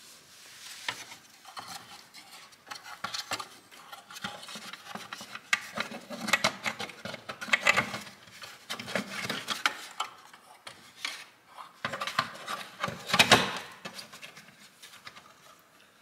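Black plastic Direct Ignition cover being fitted back onto a Saab 9-5 engine by hand: irregular clicks, taps and scraping of plastic against the metal cam cover, with the loudest knocks late on.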